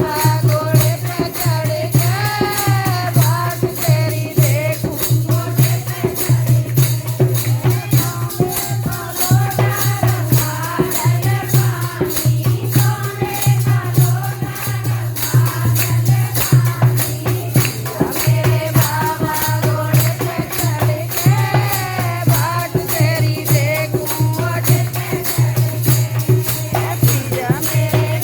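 Devotional Hindi song (bhajan): a solo voice sings a wavering melody over a steady beat of jingling hand percussion like tambourine and shakers, with a sustained low bass line underneath.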